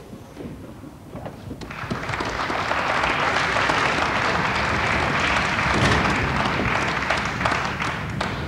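Audience applauding: the clapping starts about two seconds in, quickly builds to a steady level and starts to die away near the end.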